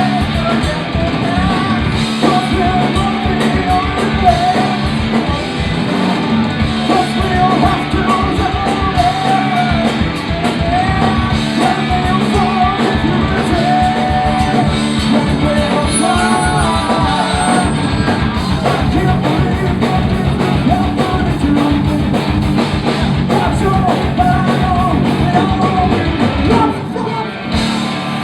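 Punk rock band playing live: electric guitars, bass and drums with shouted, yelled vocals. About 27 seconds in the full band briefly drops back.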